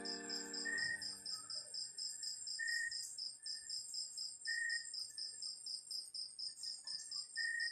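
Crickets chirping in a steady high-pitched pulsing trill of about seven pulses a second, with short lower notes from another caller every second or two. A held keyboard chord fades out about a second in.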